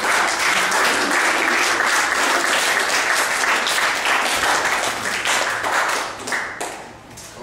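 Audience applauding, a dense run of many hands clapping that thins out and fades near the end.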